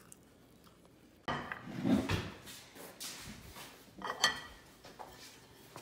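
Ceramic dishes being handled: a sudden clatter about a second in, then a few lighter knocks and sharp clicks.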